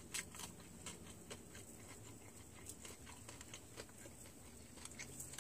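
Faint chewing of crispy fried chicken wings: soft, irregular crunches and mouth clicks, several a second.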